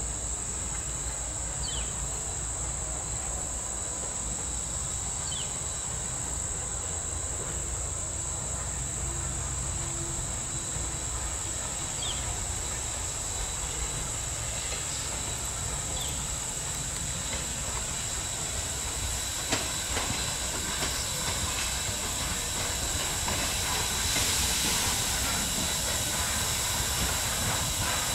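Norfolk & Western 475, a 4-8-0 steam locomotive, approaching under steam, getting louder near the end, over a steady high drone of insects.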